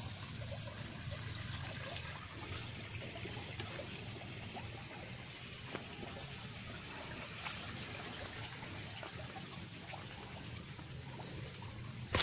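Running water trickling steadily in a rice-paddy irrigation channel, with a couple of faint clicks past the middle.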